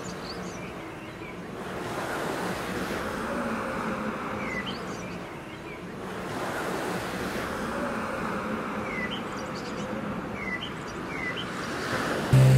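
A rushing noise that swells and fades twice, with scattered short high chirps. A loud sustained tone cuts in just before the end.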